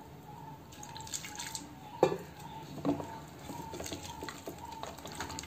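Faint wet squelching and dripping of a hand mixing besan (gram flour) batter with water in a steel bowl, with a couple of sharper ticks about two and three seconds in.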